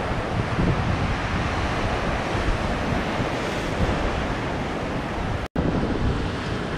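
Ocean surf breaking and washing over a rock shelf, a steady rushing wash with wind buffeting the microphone. The sound cuts out for an instant about five and a half seconds in, then carries on.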